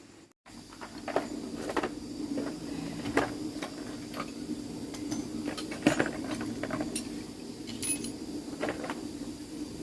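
Irregular light metallic clinks and knocks of tools and parts being handled during electric motor repair work, over a steady low hum.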